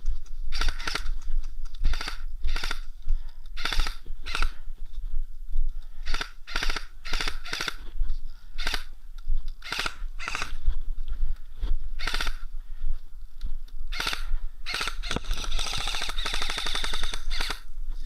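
Airsoft guns firing many short bursts of rapid shots, ending in one long burst of about two seconds near the end.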